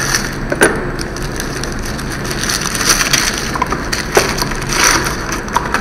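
Small plastic packet crinkling as it is handled, with a couple of sharp clicks.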